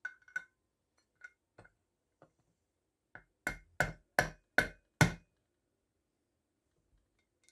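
Sharp knocking: a few light taps, then five hard strikes in quick succession about three and a half seconds in.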